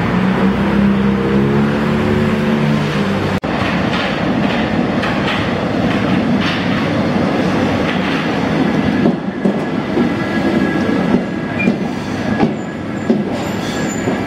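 Paris Métro train (MF 67 stock) running along a station platform: a rushing rumble with rhythmic wheel clacks over the rail joints and a faint thin wheel squeal in the second half. It is preceded by a steady droning tone for about three seconds before a sudden cut.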